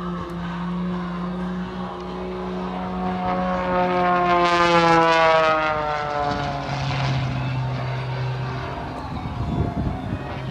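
Propeller aerobatic airplane's engine passing by, its pitch dropping as it goes past, loudest about five seconds in, then running on at a lower pitch.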